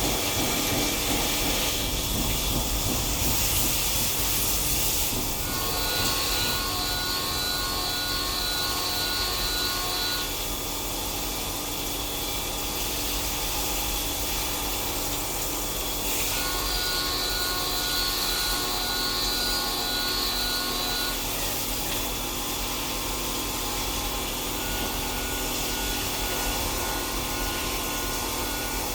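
CNC machine running and cutting metal: a steady mechanical machining noise, joined twice by a pulsing high whine lasting several seconds each time.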